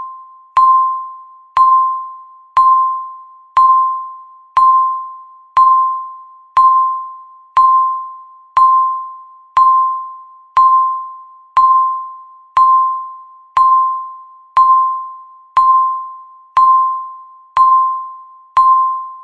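Countdown timer beep, once a second: a single pitched electronic tone that starts sharply and fades away each time, about nineteen in a row, each beep marking one second left.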